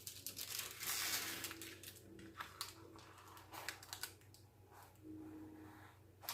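Faint, scattered clicks and short rustles of the kit being handled on the table.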